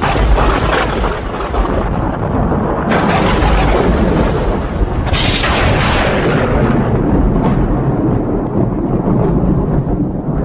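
Thunder: a continuous deep rumble that starts abruptly, with sharper claps about three and five seconds in.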